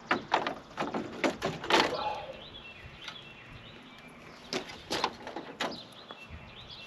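A run of sharp clicks and knocks in two clusters, with birds chirping faintly in the background.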